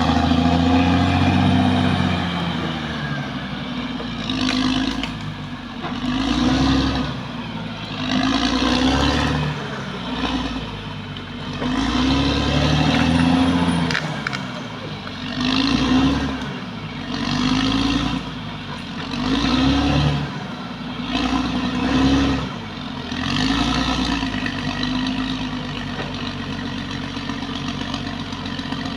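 Caterpillar D6R XL bulldozer's diesel engine working under load. Its pitch and loudness swell and fall back about every two seconds over a steady metallic clatter.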